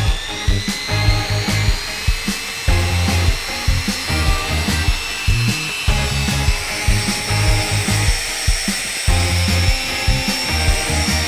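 Background music with a steady beat, over the high whine of a portable electric hand mixer's motor as its paddle stirs fine sand.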